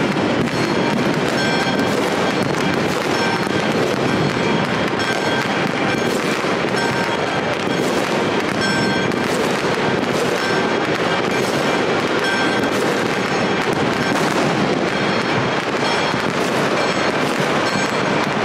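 New Year fireworks and firecrackers going off all over the city, a dense, unbroken crackle of many pops and bangs at a steady loud level.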